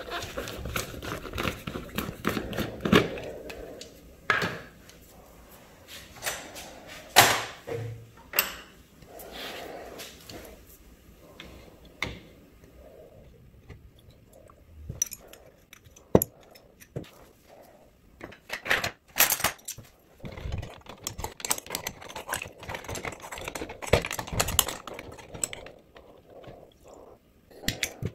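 A plastic screw-top jar lid is twisted off. Then metal tools clink and knock against the plastic jar as they are handled in and out of the soaking liquid: scattered sharp clicks and knocks with handling noise between them.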